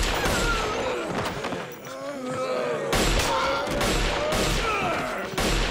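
Pistol shots fired at close range. There is one at the start, then a pause of about two and a half seconds, then a quicker series of shots from about three seconds in.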